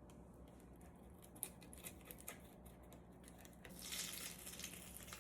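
Knife cutting along a bluegill's rib cage while filleting it: faint scattered clicks and scrapes, then a longer rasping scrape a little under four seconds in.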